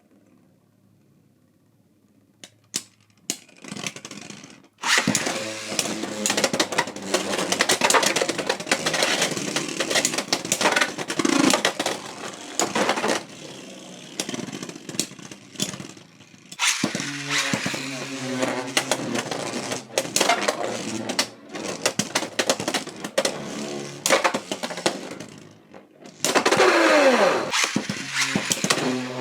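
A few light clicks, then about five seconds in two Beyblade X tops (Pegasus Blast and Golem Rock) are launched into a plastic stadium and spin, clash and rattle against each other and the walls. Near the end a second loud burst of spinning and clashing starts.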